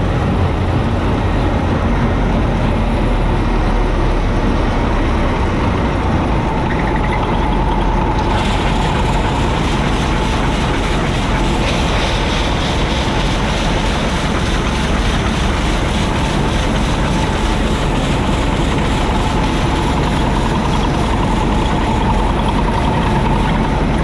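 Massey Ferguson 86 combine harvester running steadily, its engine and threshing gear making a dense, even drone. A steady whine rises out of it a little after six seconds in, and a hiss grows in above it about eight seconds in.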